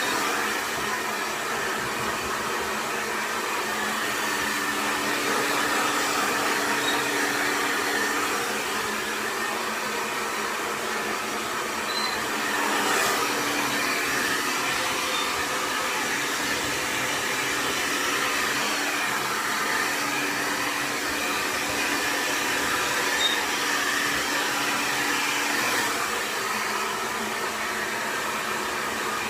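Xtava Allure 2200 W professional hair dryer blowing steadily, a continuous rush of air with a faint steady hum beneath it and small rises and falls in loudness.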